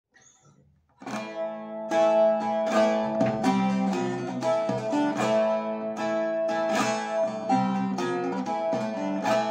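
Bağlama (Turkish long-necked saz) played solo: a quick picked melody over steadily ringing drone strings, starting about a second in.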